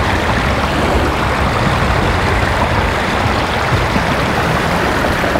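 Steady rush of creek water running over rocks.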